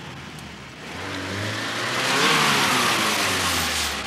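A saloon car drives up and its tyres run through a roadside puddle: the engine note rises and then falls, with a loud rushing splash of water at its loudest point about two seconds in.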